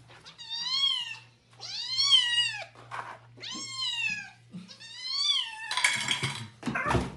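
Orange tabby cat meowing four times, each meow about a second long and rising then falling in pitch, while it waits to be fed. A brief clatter follows near the end.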